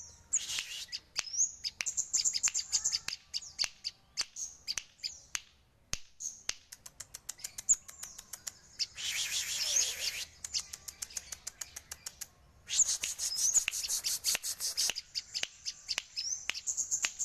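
Sogon (cucak jenggot) calling: fast runs of sharp clicks mixed with high whistled notes, broken three times by harsh, raspy bursts lasting one to two seconds.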